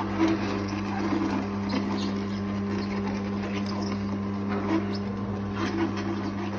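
Hafele cold press slow juicer running: a steady motor hum with scattered crackles and crunches as the auger crushes pieces of pineapple and purple cabbage.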